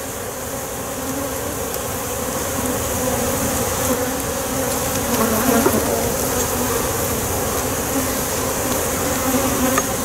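A large colony of honey bees buzzing over the open top of a hive box crowded with bees: a steady, wavering hum.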